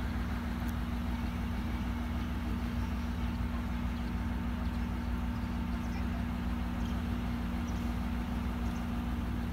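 KiHa E130 diesel railcar idling at a standstill: a steady low engine hum with a constant drone.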